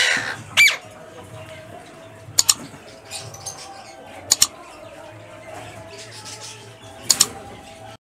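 Caged parakeets screeching: a harsh squawk at the start, then a curved, bending screech, followed by three pairs of short sharp calls spaced a couple of seconds apart, over a faint steady hum.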